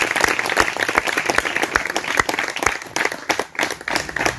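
Audience applauding, the clapping thinning out to scattered claps near the end.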